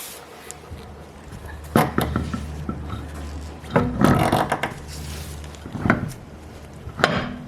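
Knocks and clanks of a car road wheel being fitted back onto the hub, several separate sharp impacts about one to two seconds apart.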